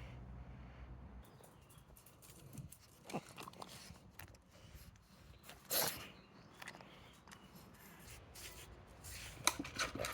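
Pug sniffing along the floor and eating treats: irregular short sniffs and small crunchy clicks, with a louder sniff about six seconds in and a quick run of them near the end.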